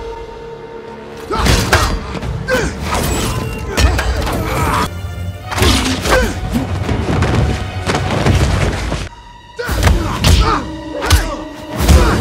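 Film fight soundtrack: a rapid run of punch, kick and body-blow thuds with short grunts, over action score music. Everything briefly drops away about nine seconds in, then the hits resume.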